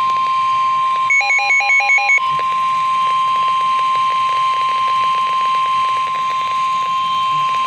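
Weather-alert warning tone: one steady high-pitched tone of about 1050 Hz, the attention tone that comes before a severe weather warning is read. About a second in, a quick run of alternating higher and lower beeps sounds over it for about a second.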